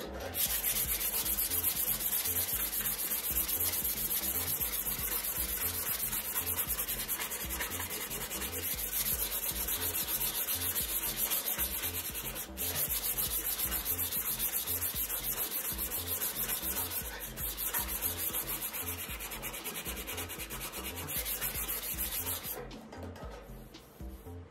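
Sandpaper rubbed back and forth by hand along a round wooden pump handle, a continuous scratchy sanding sound. It breaks off briefly about halfway through and stops about two seconds before the end.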